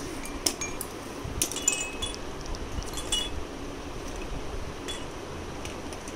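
Pink roly-poly tumbler toy's chime tinkling as it is rocked and knocked about: a handful of short, bright tinkles, bunched in the first half.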